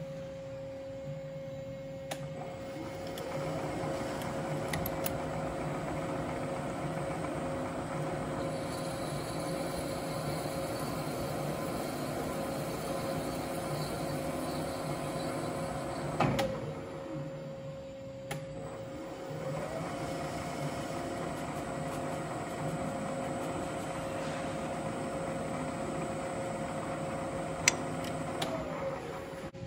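Vertical milling machine running slowly in back gear, power-tapping a spark plug thread through a floating tap holder. The motor whine glides up a few seconds in, runs steadily, drops away about halfway through, then glides up again and falls off near the end.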